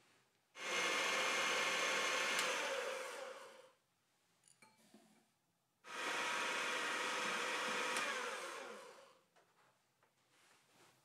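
Electric hand mixer whisking egg whites and sugar into meringue in a glass bowl. It runs in two stretches of about three seconds each, and each one falls away as the motor slows.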